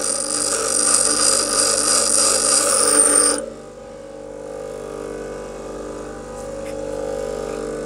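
Bench grinder grinding a steel file: a steady hiss of the wheel on the metal over the motor's hum. About three and a half seconds in the grinding stops and only the grinder's motor hum goes on.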